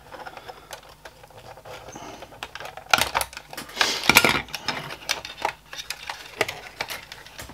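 Irregular small clicks, taps and plastic rattles from hands handling the plastic parts and wiring inside an opened projector, with a cluster of louder knocks and rustling about three to four seconds in.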